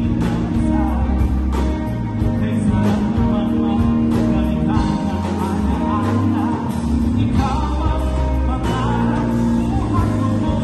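Live pop band playing a song through PA speakers: a male singer over drums, bass and electric guitar, with a steady drum beat and held bass notes.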